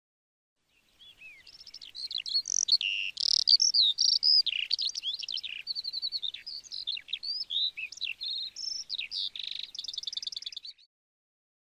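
A songbird singing one long, varied song of quick whistles, chirps and glides. It ends in a fast trill and cuts off shortly before the end.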